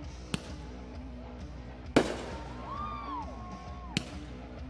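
Fireworks going off: three sharp bangs about two seconds apart, the middle one loudest, with a whistle that rises and falls between the second and third.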